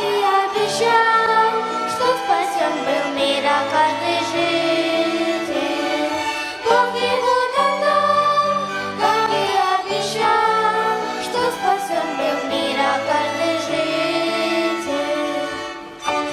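Voices singing a church song over a violin ensemble, held melodic notes moving through a slow tune.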